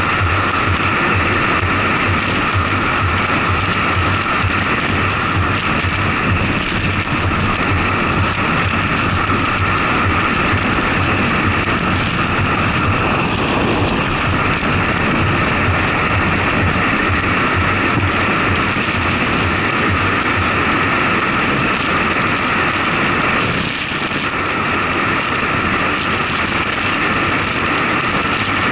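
Steady rush of wind and road noise from a moving truck, picked up by an action camera mounted on the outside of the body, with a low hum in the first half that fades about halfway through.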